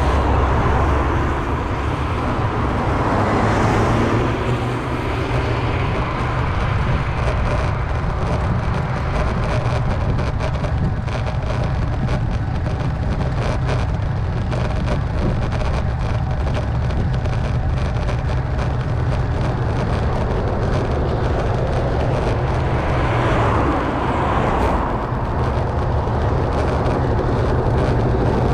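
Road traffic passing close by: a steady low rumble, with a vehicle swelling past in the first few seconds and another about 23 seconds in.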